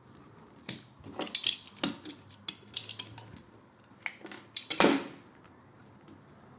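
Clattering and knocking of small hard objects being handled and pried loose: a run of sharp clicks and knocks, with a louder cluster about five seconds in.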